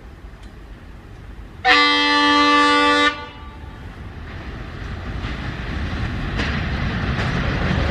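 Air horn of an approaching train hauled by twin WDM-3D diesel locomotives, sounding one blast of about a second and a half, a chord of several tones, about two seconds in. After it the diesel engines and the rolling of the train grow steadily louder as it nears.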